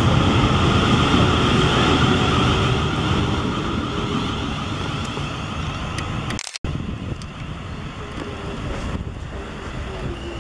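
Class 450 Desiro electric multiple unit pulling away close by, with a loud rumble of wheels on rail and a steady high electric whine from the traction motors. About six seconds in, the sound cuts off abruptly. A quieter, steadier rumble follows as a second Class 450 comes into the station.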